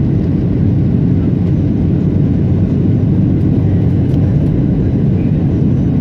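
Steady cabin noise of a jet airliner on approach for landing: an even, loud rumble from the engines and airflow, heard from a window seat beside the wing-mounted engine.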